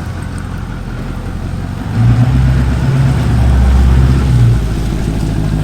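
12-valve Cummins diesel engine running, getting louder about two seconds in and easing back after about four and a half seconds.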